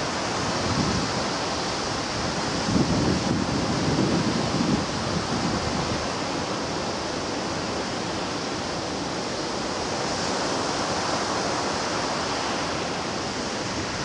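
Sea waves breaking against the shore: a steady rush of surf with low swells that build and ease every few seconds.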